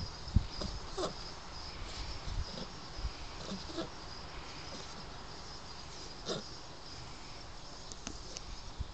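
Shar Pei puppy snoring and snuffling in its sleep: irregular short snorts and nasal sniffles, several close together early on and then fewer, with one more about six seconds in.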